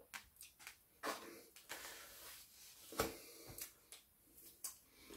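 Quiet mouth and eating sounds: chewing and wet clicks and smacks, with a soft knock about three seconds in.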